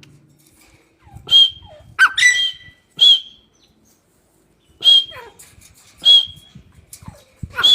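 Grey francolin (teetar) calling: about seven short, sharp calls at irregular intervals, each ending in a brief high whistled note.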